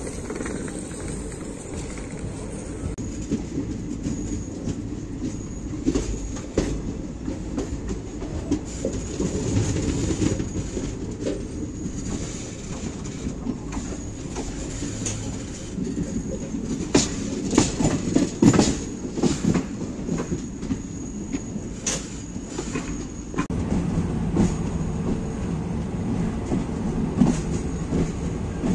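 Passenger train coaches running on the rails, heard from an open coach doorway: a steady rumble of wheels with many sharp clattering clicks over rail joints and points, thickest a little past the middle.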